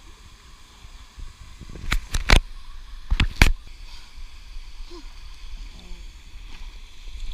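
Water sloshing and lapping against a camera held at the waterline as a swimmer moves through a pool, with a few sharp knocks, three around two seconds in and two more around three seconds in.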